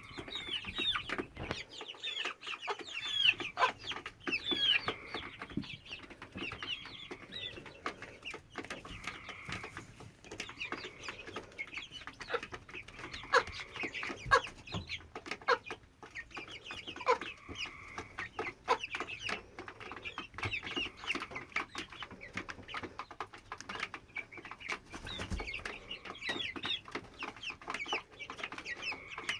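Young hen of about 10–12 weeks making a constant run of short, high, falling chirps over and over, with a held high note at times. The owner is unsure whether this nonstop call is normal.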